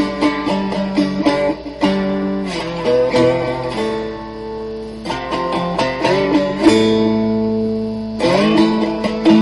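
Three-string cigar box guitar played with a slide: quick picked notes that slide up in pitch, settling twice into long ringing held notes.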